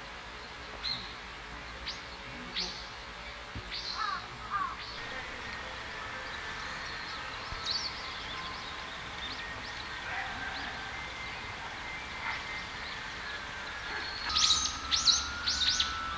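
Japanese white-eyes calling: short, thin, high calls that sweep downward, scattered singly, then a quick run of several louder calls near the end.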